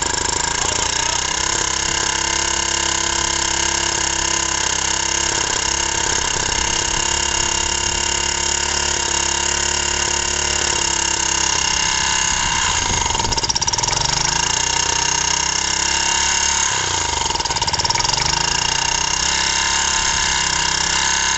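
Honda G100 single-cylinder engine running with next to no compression, knocking heavily with piston slap from broken piston rings and a badly scored bore. Its speed sags and picks up again several times in the second half.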